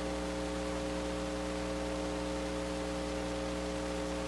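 Steady electrical hum of several even tones under a constant hiss, the background noise of an old 1980s recording's soundtrack.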